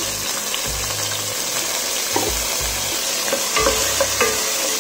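Chopped tomatoes and onions sizzling in hot oil in a nonstick pot, stirred with a wooden spatula, with a steady hiss and scattered light scraping taps.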